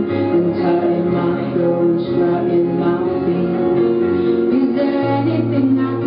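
Music with singing over sustained instrumental chords and a bass line.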